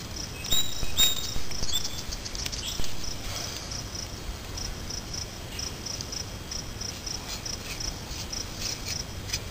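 Insects chirping in a steady, evenly pulsed high trill, with a few light clicks and short high chirps in the first three seconds.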